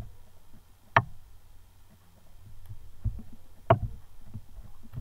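Two computer mouse-button clicks, about a second in and again near four seconds, over a faint low hum.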